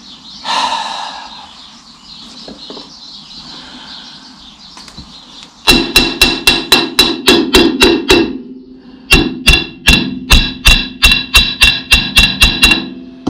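Rapid hammer blows on metal at the tractor's rear axle hub, about five or six a second, each with a short ringing tone. They come in two runs with a brief pause between, after a few quieter seconds of handling.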